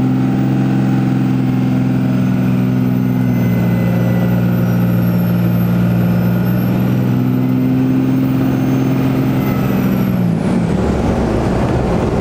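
Cummins diesel in a Dodge Ram pickup pulling steadily on the road, a strong even engine note with a high turbo whistle above it. About ten seconds in, the engine note and whistle drop away as the throttle is let off.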